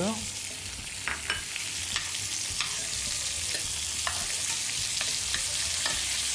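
Monkfish tail frying in butter in an enamelled cocotte: a steady sizzling hiss with scattered sharp crackles and clicks as a metal spoon moves the added butter cubes around the pan.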